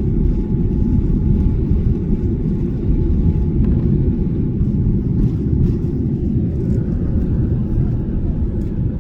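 Boeing 787-9 jet engines and airflow during takeoff, heard as a steady deep rumble.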